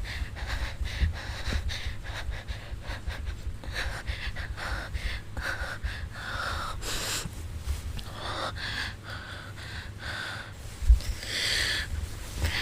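A woman's heavy breathing: a run of breathy inhales and exhales, some sharp and gasp-like, with the strongest breath a little before the end.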